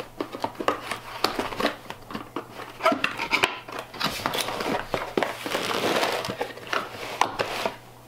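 Cardboard box being opened and handled by hand: cardboard rustling and scraping with many small knocks, busiest in the second half and stopping suddenly near the end.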